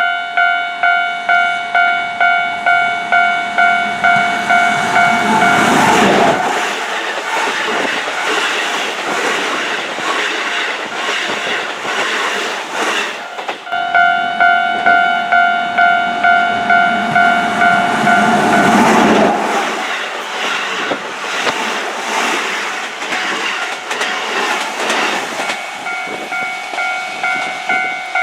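Level-crossing warning bell ringing steadily about twice a second. Two Keihan electric trains pass through the crossing one after the other, their wheels clattering over the rail joints and drowning out the bell each time. The bell is heard again between the trains and after the second one.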